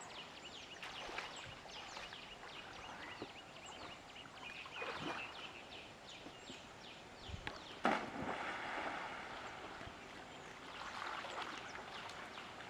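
Many birds chirping with quick falling calls throughout, with intermittent splashing of water. Just before eight seconds in, a sharp loud splash, as of a person diving into the water.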